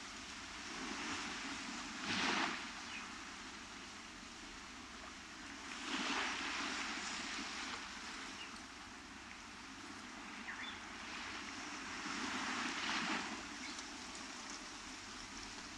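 Ocean waves breaking and washing onto a beach over a steady surf hiss, with louder surges about two, six and thirteen seconds in.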